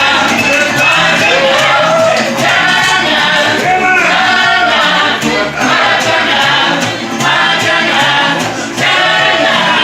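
Mariachi band playing live and singing in chorus, with an upbeat charanga-style rhythm over a stepping bass line.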